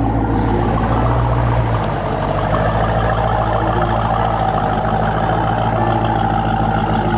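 Dodge Charger Scat Pack's 392 (6.4-litre) HEMI V8 idling steadily with a deep low hum.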